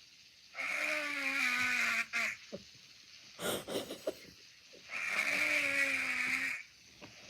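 A man snoring: two long snores about four seconds apart, each lasting about a second and a half with a low droning pitch that sags slightly, and a short breathy puff of breath between them.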